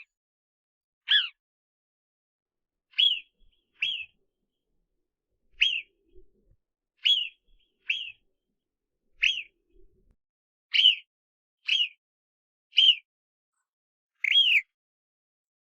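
Groundhog (woodchuck) giving short, shrill alarm whistles: about eleven separate calls spaced one to two seconds apart, each a brief high note that falls away at its end.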